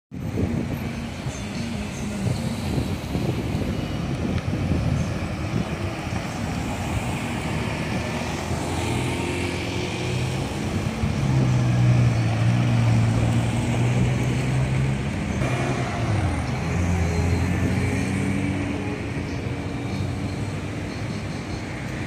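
Busy roundabout traffic: cars and pickup trucks driving past close by, with a steady rumble of engines and tyres. The engine hum swells around the middle as a vehicle passes near, and another follows a few seconds later.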